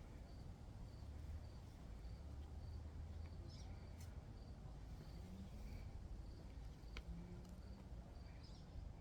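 A cricket chirping steadily, about two short high chirps a second, faint over a low background rumble, with a couple of brief clicks.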